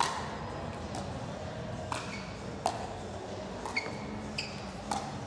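Pickleball paddles striking the plastic ball in a soft dinking rally: a series of sharp pocks, each with a short ping, about half a second to a second apart.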